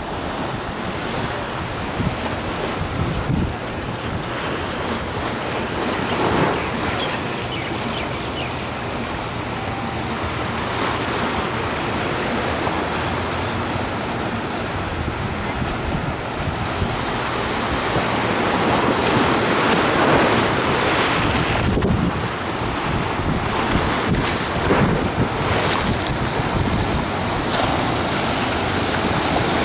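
Small waves washing over a shallow rocky reef and against a rock seawall, swelling and easing every few seconds, with wind buffeting the microphone.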